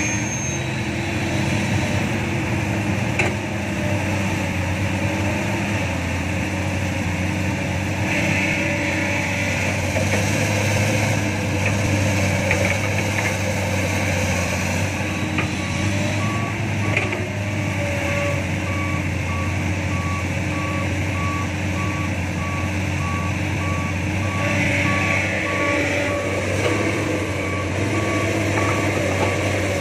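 Diesel engines of a hydraulic excavator and dump trucks running steadily. From about halfway in, a reversing alarm beeps at an even pace.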